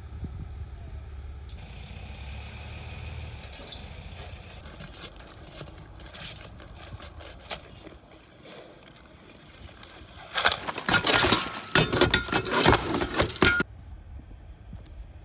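Roofing job-site sounds: a low steady engine hum, then about three seconds of loud, rapid scraping and clattering about ten seconds in, typical of shingle or tear-off work on a roof.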